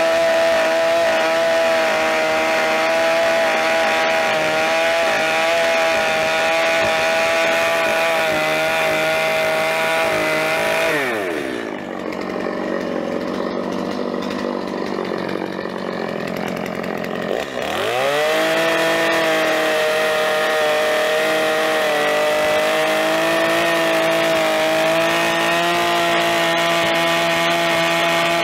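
Two-stroke gas chainsaw at full throttle, cutting through the hewn logs of a log cabin wall. About eleven seconds in it drops to idle for roughly six seconds, then revs back up and cuts on.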